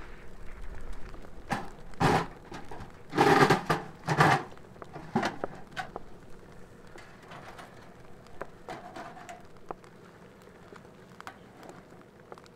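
A pizza on a baking stone being slid into the oven box of a small portable steel wood stove: stone and steel knocking and scraping in a cluster of loud clatters about two to four seconds in. Quieter metal clicks follow as the oven door is closed.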